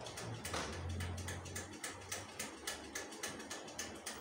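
Rapid, regular ticking, about four ticks a second, over a low hum that fades about halfway through.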